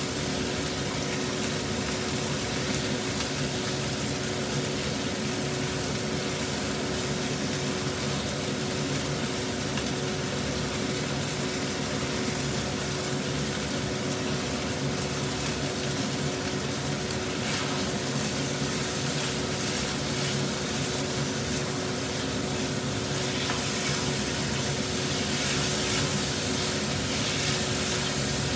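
Diced chicken and shrimp sizzling as they are stir-fried in oil in a nonstick frying pan, turned now and then with a plastic spatula, over a steady hum.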